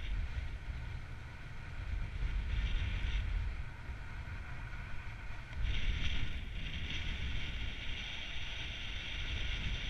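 Wind buffeting an action camera's microphone: a steady low rumble, with a hiss that swells about two and a half seconds in and again from about five and a half seconds.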